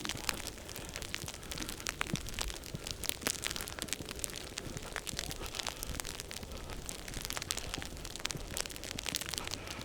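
Irregular crisp ticks and crunches over a soft steady hiss: sleet pellets pattering on clothing close to a lavalier mic while boots crunch through fresh snow.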